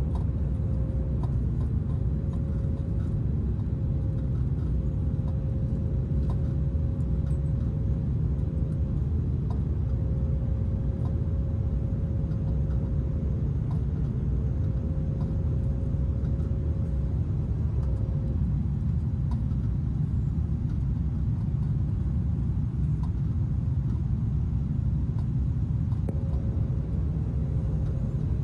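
Steady low rumble inside the cabin of an Airbus A350 airliner, with a faint hum above it.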